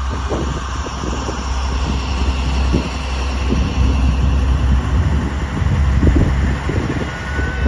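Fishing boat's inboard diesel engine running steadily under way: a continuous low hum, with wind gusting on the microphone.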